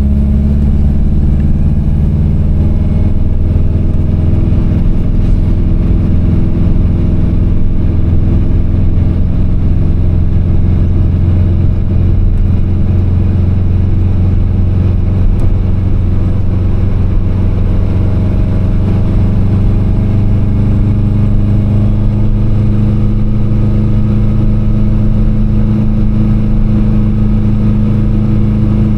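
Subaru WRX's turbocharged flat-four engine running under way, its pitch easing down in the first few seconds and climbing again about two-thirds of the way through.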